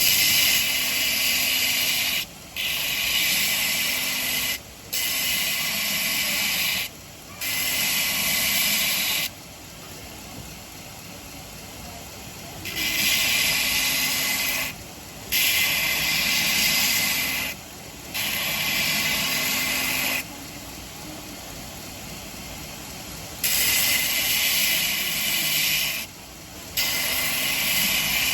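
Belt grinder with an 80-grit belt running, a stainless cleaver blade pressed to the belt in grinding passes of about two seconds each: a loud hissing grind, nine passes in three groups. Between passes the machine runs on with a quieter hum.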